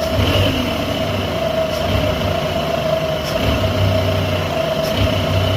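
Car engine running with the throttle opened slightly, misfiring on one cylinder because of an internally shorted ignition coil; the low engine note pulses unevenly. A steady high whine runs along with it.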